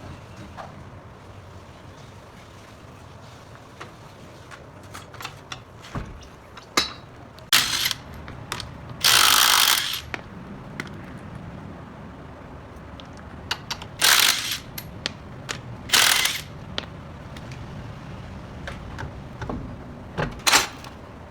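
Car repair work with hand tools: scattered clicks and metal clinks, like a ratchet and loose parts, broken by a few loud hissing bursts lasting about a second each.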